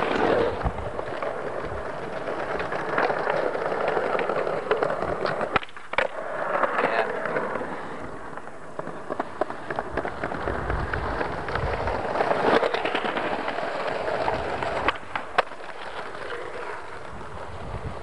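Skateboard wheels rolling over concrete paving slabs, a rough rumble that swells and fades as riders pass, with a few sharp clacks of boards striking the ground.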